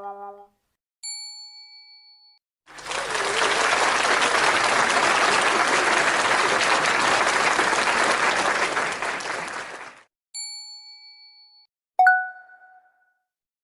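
A run of separate sound effects: a short bright ding about a second in, then a steady rush of noise lasting about seven seconds, then a second identical ding, then a single sharp metallic strike that rings briefly near the end.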